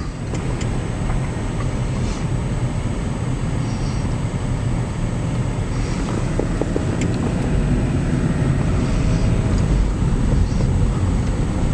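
Car driving, with a steady low road and engine rumble that grows slightly louder.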